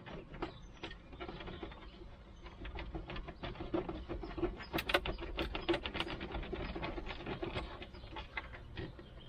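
Rapid clicking and rattling of plastic parts being worked loose by hand under the dashboard, busiest in the middle and dying down near the end.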